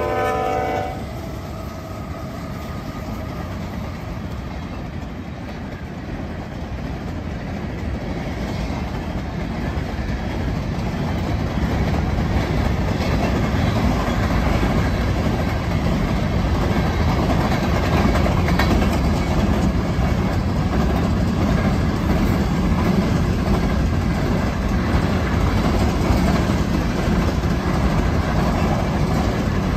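Union Pacific grain train rolling fast past the track. The locomotive horn cuts off about a second in, then the steady noise of covered hopper cars' wheels on the rails builds over the next ten seconds or so and holds.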